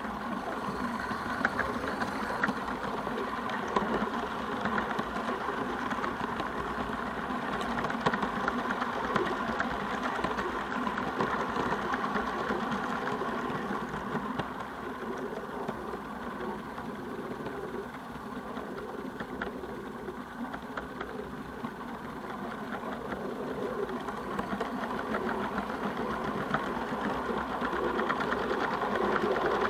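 Small live-steam garden-railway locomotive running along the track, heard from the wagon it is hauling: a quick, steady run of exhaust chuffs and clicks from the wheels and track. It grows a little quieter between about 14 and 24 seconds in.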